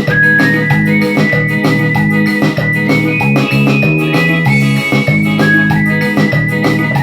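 Instrumental passage of brega-style electronic keyboard music: a sustained organ-like synth lead melody that steps between held notes, over a steady programmed beat and bass.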